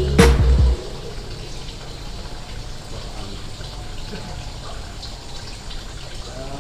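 A music intro ends with a final hit within the first second. It gives way to a steady rush of running water.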